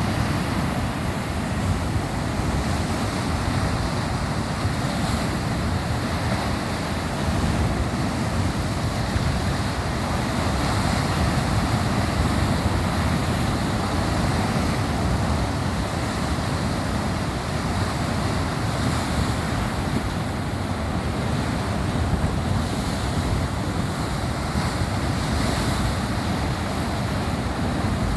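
Ocean surf: a continuous, steady rush of breaking and washing waves, heaviest in the low rumble.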